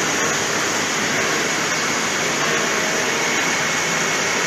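Steady rushing and bubbling of aerated water in live-seafood holding tanks, even and unbroken, with a faint steady hum underneath.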